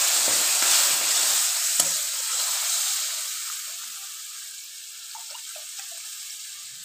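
Milk, egg and sugar mixture poured through a strainer into a hot pan of ghee-roasted semolina. It sizzles and hisses loudly at first, and the sizzle dies down steadily over the next few seconds. There are two light knocks in the first two seconds.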